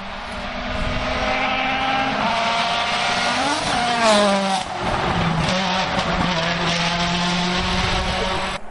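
Citroën DS3 WRC rally car coming up at speed and passing close by. Its engine note climbs as it approaches, is loudest and drops in pitch as it goes past about four seconds in, then holds a steady lower note as it pulls away. The sound cuts off suddenly near the end.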